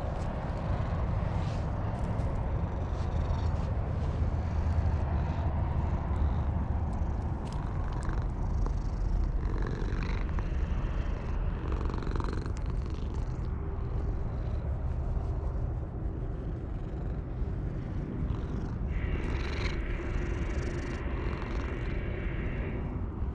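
Cat purring steadily while being stroked, with a few short higher-pitched sounds about ten seconds in and again near the end.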